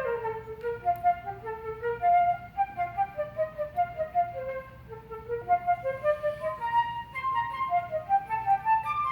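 Solo flute playing a quick passage of short, separate notes that skip up and down, climbing higher over the last few seconds.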